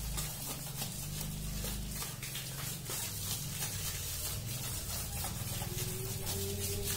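Water from a hose spraying and splashing over a soaped motorcycle's frame and engine: a steady hiss with many small spatters.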